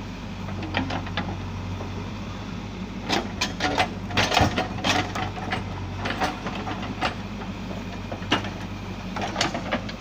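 JCB 3DX backhoe loader's diesel engine running steadily while the backhoe arm digs, with a burst of sharp knocks and clatters from the bucket working stony soil about three seconds in and single knocks later on.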